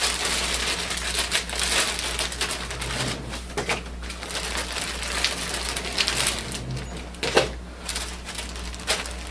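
Crinkling plastic wrap and scattered clicks as ink cartridge packs are handled and set down one by one on top of a printer.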